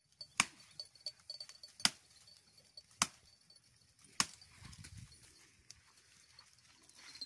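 Tree branches being chopped overhead with a hand tool: four sharp knocks roughly every second and a bit, with smaller cracks of twigs between them.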